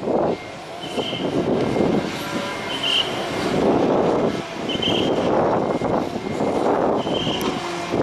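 Heavy truck noise rising and falling as a semi-trailer tractor-trailer reverses, with a short high beep from its reversing alarm about every two seconds.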